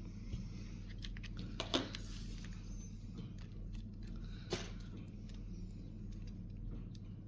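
Steady low electrical hum with a few sharp clicks, the loudest about two seconds in and again about four and a half seconds in.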